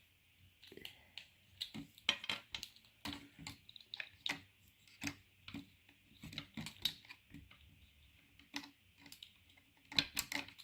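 Irregular light clicks and taps of small plastic toy anatomy pieces being handled and pressed into a squishy human body model, getting busier and louder near the end.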